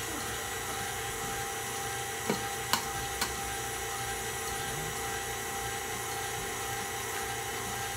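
KitchenAid tilt-head stand mixer running steadily with its motor whirring as it beats butter and sugar, with two sharp clicks about three seconds in.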